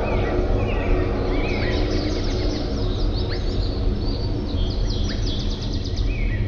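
Several songbirds chirping and trilling in quick overlapping phrases, over a steady low background rumble.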